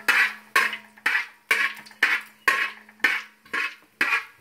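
Steel spoon stirring and scraping fennel seeds frying in oil across the bottom of a wide metal pan, in even strokes about twice a second.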